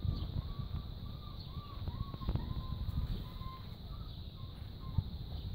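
Wind buffeting the microphone, with a faint run of about ten short, evenly spaced high calls that fade away over about four seconds.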